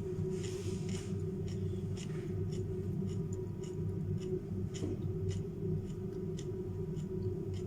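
Close-up crunching and chewing of raw carrots and cucumber: irregular sharp crunches, a few a second, over a steady low hum.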